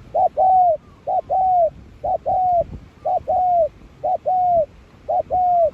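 Spotted dove cooing: a repeated phrase of a short note followed by a longer arched note, given six times at about one a second.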